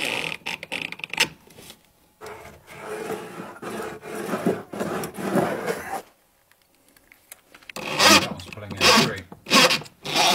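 Stainless steel decking screw being driven into a wooden stair tread without a pilot hole, the threads grinding through the wood in bursts. There is a quiet gap of about two seconds a little past the middle.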